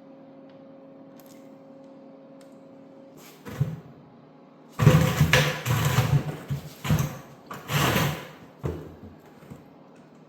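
A faint steady hum stops about three seconds in. Then comes one knock, and from about five seconds in a loud run of irregular knocks and scraping, like metal parts and tools being handled on a workbench.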